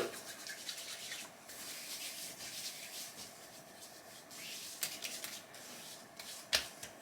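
Hands rubbing aftershave balm into freshly shaved skin: a faint, uneven rubbing, with a sharp click at the start and another near the end.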